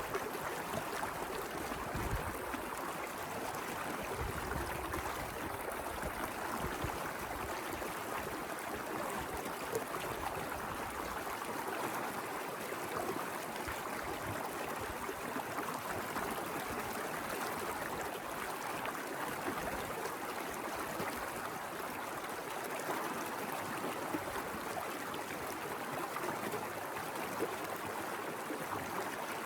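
Mountain river rushing and gurgling over rocks, a steady even flow.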